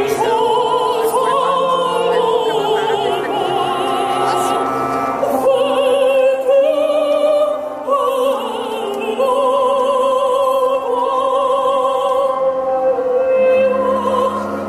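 Operatic singing with strong vibrato over classical music, several held notes wavering in pitch one after another.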